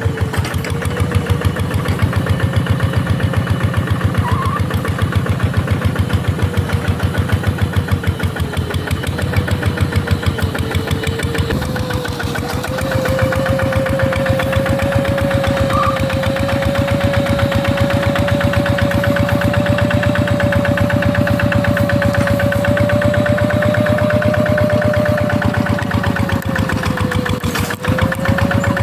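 Paddy-field hand tractor's single-cylinder diesel engine running steadily with a rapid, even chugging, and a whine over it that rises slightly about twelve seconds in and holds.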